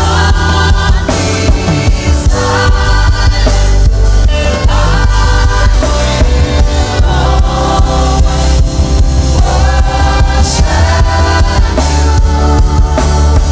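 Gospel worship music: a choir singing over a band with drums.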